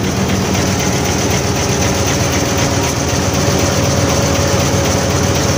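Isuzu 10PD1 V10 diesel engine running steadily with the power take-off engaged, driving the hydraulic pump that raises the dump body, with a steady higher tone held over the engine sound.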